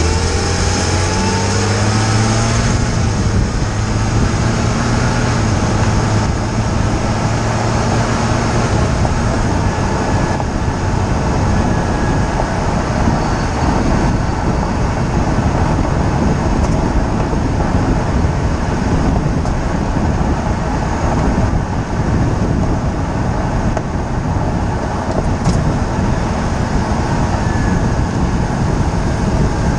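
Loud, steady tyre and wind rumble in the wheel well of a BMW E46 325xi on the move. In the first several seconds the engine note rises as the car accelerates, then fades into the road noise about nine seconds in.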